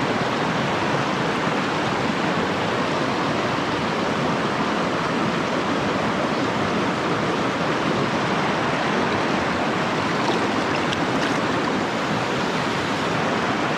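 Steady rushing of a fast-flowing river's water.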